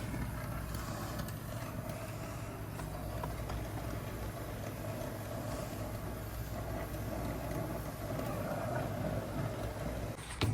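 Brazing torch flame burning steadily while a compressor's refrigerant line is brazed with nitrogen flowing through the line, and a sharp click near the end.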